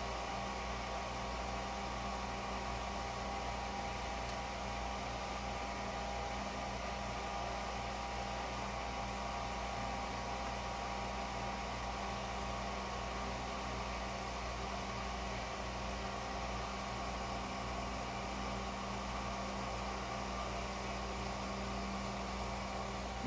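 The 5-inch muffin fan cooling a thermoelectric generator's heat sink, running on the generator's own output, and the 8,000 BTU gas burner heating the unit. Together they make a steady whir with a few faint hum tones in it.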